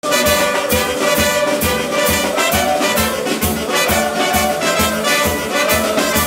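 Brass band music: trumpets and trombones playing a melody over a steady drum beat, about two beats a second.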